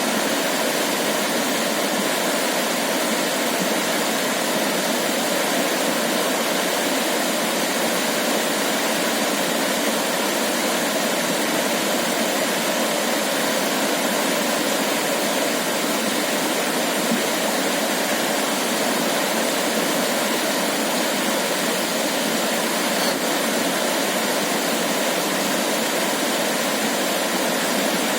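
Shallow river water flowing steadily over pebbles, an even, unbroken rush of water noise.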